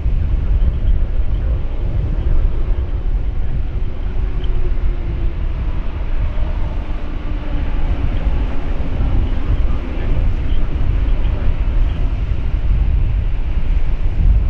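Wind buffeting the microphone, with the steady whine of a taxiing Boeing 787-9's twin jet engines at low thrust underneath.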